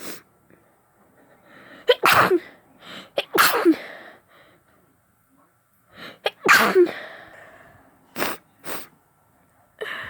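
Wet sneezes from a woman with a heavy head cold, three in a row, each loud and sudden with a falling pitch.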